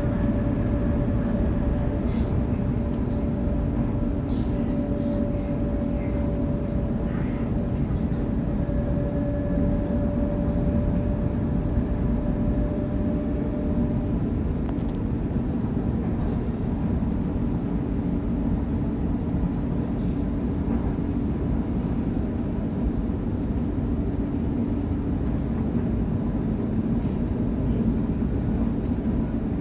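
Sydney Trains electric suburban train running at speed, heard from inside the carriage: a steady rumble of wheels on rails with a constant hum, and a higher steady tone that stops about halfway through.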